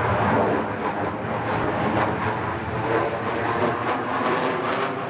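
F-15SG fighter's twin afterburning turbofans at full takeoff power as the jet lifts off and climbs away: a loud, steady jet rumble, with crackle that grows near the end.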